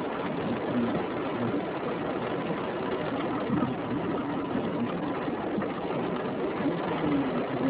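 Strong wind buffeting a parked car, heard from inside the cabin as a steady rushing noise.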